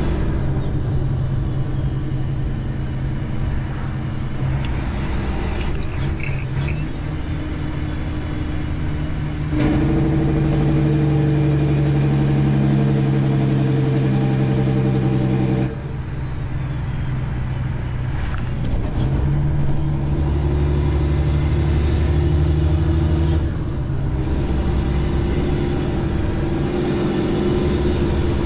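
Freightliner Classic semi-truck's diesel engine heard from inside the cab while driving, pulling steadily and then easing off several times as the driver works through the gears on the manual shifter. There is a faint rising whistle near the end.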